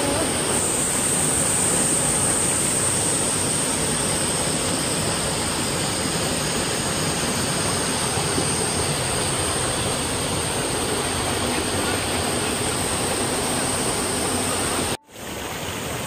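Mountain stream rushing over boulders in small cascades: a steady, even rush of water, cut off briefly near the end before it returns.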